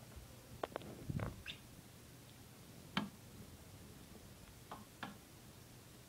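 Hampton Bay Cameron II ceiling fan running with a faint steady low hum, with a few scattered light clicks and taps, the sharpest about three seconds in.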